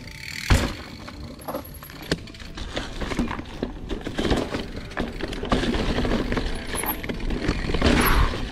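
Mountain bike riding over rock and dry leaves: a hard thump about half a second in as the bike lands from a jump, then steady tyre noise and crunching leaves with the bike rattling over rough ground, getting louder toward the end.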